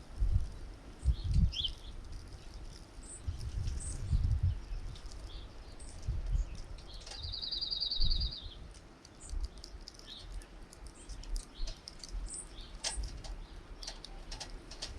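Small songbirds chirping at a feeder: scattered short high calls, with one rapid trill of about a second and a half near the middle and a few sharp clicks near the end. Bursts of low rumble, the loudest sounds, come and go underneath.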